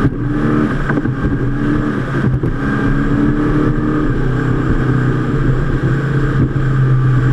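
Powerboat engines running at high speed, a steady drone, with wind and water noise rushing over the open cockpit.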